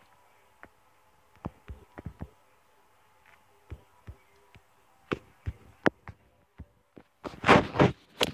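Handling noise from a camera held in the hand: scattered light clicks and taps, then a louder rustling scrape of about a second near the end as the camera is moved.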